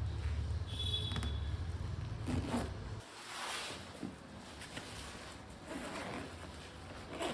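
A bag zip's slider being run along its teeth in a few short strokes, the cobbler working and testing the repaired zip. A low rumble of traffic underlies the first three seconds and then stops.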